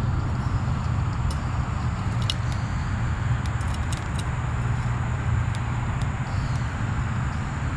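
An engine running steadily with a low, even hum, with a few light clicks and rattles over it.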